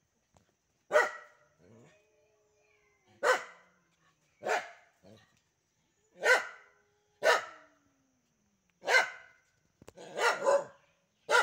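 A dog barking: short, sharp single barks every second or two, with a quick double bark near the end.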